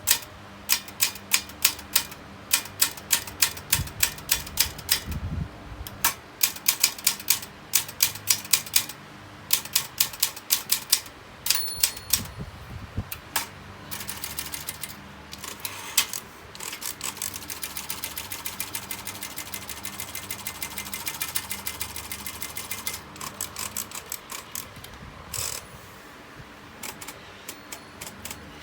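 Vintage Olympia manual typewriter being typed on: keys clack in bursts of a few strikes a second, with a stretch of fast, even ticking in the middle and a brief ringing tone now and then.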